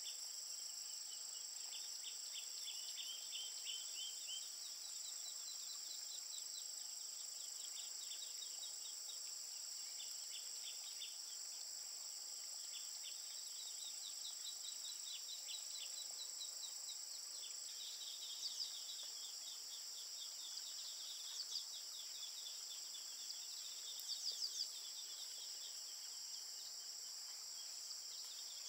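Steady high-pitched drone of insects with rapid repeated chirping trills running over it. A few short, sharp chirps stand out past the middle, the loudest sounds here, in a quick cluster near the end.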